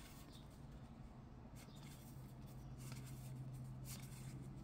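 Faint rustling of baseball trading cards as they are slid one by one off a stack held in the hands, a few soft swipes over a low steady hum.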